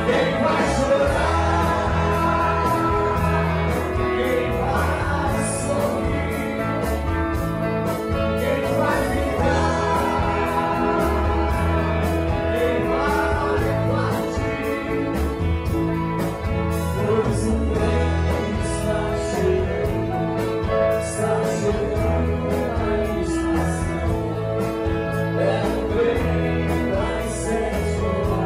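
Live band playing: a male singer sings into a microphone over electric bass guitar and a steady beat of drums and cymbals.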